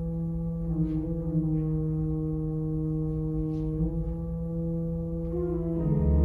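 Pipe organ playing soft sustained chords, the held notes changing every second or two, with a deep pedal bass coming in near the end.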